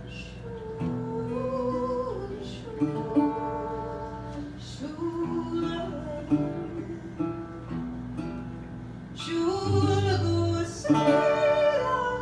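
A song: a singing voice accompanied by acoustic guitar.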